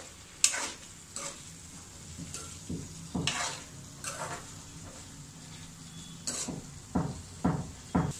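Metal spatula scraping and stirring diced potato, cauliflower and peas through tomato-onion paste in a non-stick pan, about eight uneven scrapes, over a low sizzle as the vegetables cook.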